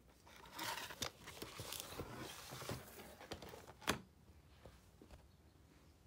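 Paper pages of a sketchbook rustling and crinkling as they are handled and flipped, with many small crackles and one sharp click about four seconds in, then fading to faint handling noise.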